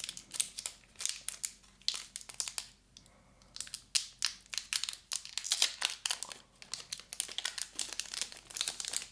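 Packaging crinkling and rustling in quick irregular crackles as a stylus pen is unwrapped, with a few tearing sounds; it stops abruptly near the end.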